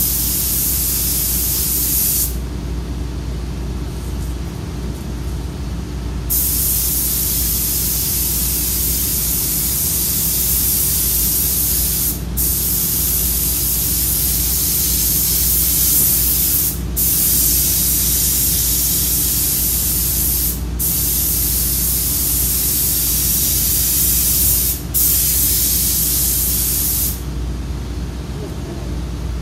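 Compressed-air paint spray gun hissing as it sprays paint onto a truck fender in long passes. The hiss stops for about four seconds a couple of seconds in, then runs on with four brief breaks between passes and stops near the end. A steady low hum runs underneath.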